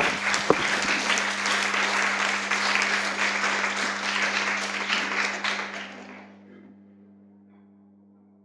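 Small audience applauding, dying away about six seconds in, over a steady low hum.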